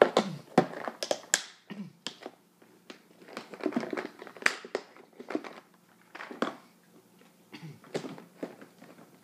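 Clear plastic medicine organizer boxes and bottles being handled and packed: a run of irregular clicks, knocks and clatters of plastic.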